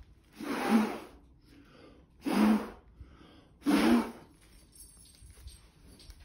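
A person blowing three hard puffs of breath by mouth onto wet acrylic paint, each about half a second long and spaced over a second apart. The blowing pushes the paint across the surface in a Dutch pour.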